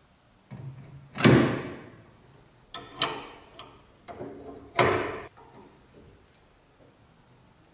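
Rusty pivot of an antique cast-iron bread cutter: the rusted blade arm creaks and clanks as it is worked on its seized joint, with metal clinks of spanners on the rusted pivot nut. The loudest creaking clank comes about a second in, and another near the five-second mark.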